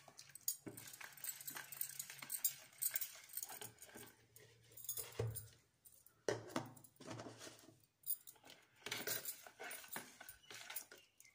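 Steel spoon stirring thin gram-flour batter in a pot, with irregular clinks and scrapes of the spoon against the pot, pausing briefly about eight seconds in.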